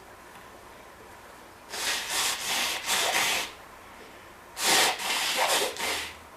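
A person blowing their nose hard: two long blows, each in two or three pulses, about a second apart.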